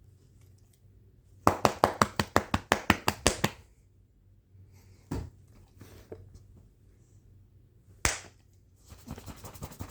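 A hand patting a dog's body in a quick run of about fourteen smacks, about seven a second, then two single smacks a few seconds apart.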